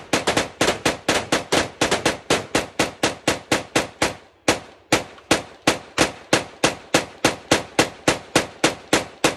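Rapid semi-automatic gunfire from a drum-fed firearm, evenly spaced at about four shots a second. The shots pause briefly a little over four seconds in, then run on at the same pace.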